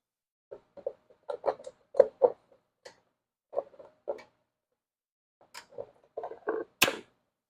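A run of irregular clicks and knocks, like parts and tools being handled on a workbench, about a dozen in all, the loudest a sharp knock near the end.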